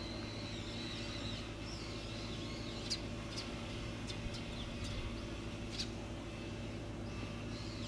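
Small birds calling: thin high chirps and warbling glides, with a handful of sharp short chips in the middle, over a low steady hum.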